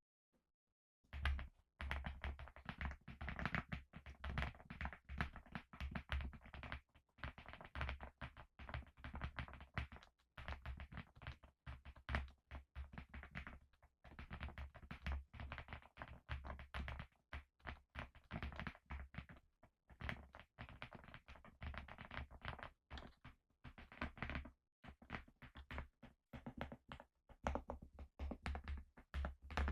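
Typing on a TickType DP104 mechanical keyboard with Rye linear switches: a fast, continuous stream of keystrokes that starts about a second in, broken by a few brief pauses.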